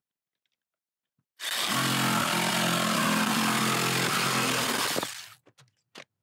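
Jigsaw cutting straight through a board: the saw starts about a second and a half in, runs steadily for about four seconds, then stops, followed by a few light knocks.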